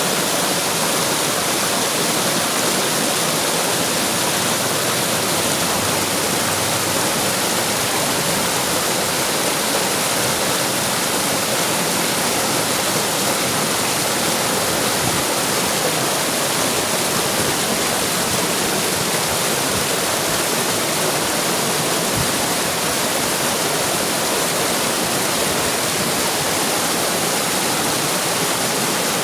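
Running water: a steady, even rush of flowing, splashing water that does not change.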